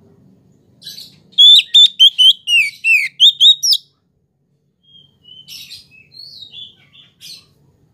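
Oriental magpie-robin (kacer) singing: a loud run of about ten clear whistled notes with quick upward flicks, then quieter scratchy, chattering notes.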